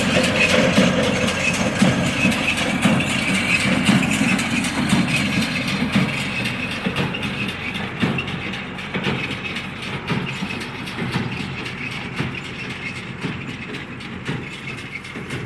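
John Deere 2040 tractor's diesel engine running while pulling a working John Deere 24T baler, with mechanical clatter over the engine. The sound fades steadily as the rig moves away.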